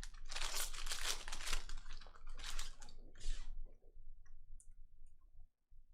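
Foil wrapper of a trading-card pack being torn open and crinkled, in several rustling bursts, then a few faint ticks of cards being handled.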